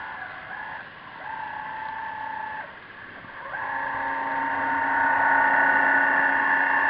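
Steady whine of a radio-controlled model submarine's electric drive motor, heard underwater. It drops out briefly twice, then comes back and grows louder as the submarine passes close.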